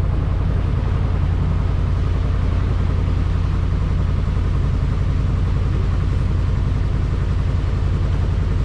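Tour boat's engine running steadily with an even, low throb.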